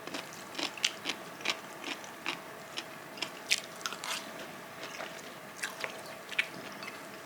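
Eating sounds: irregular small crunches and clicks, a few each second.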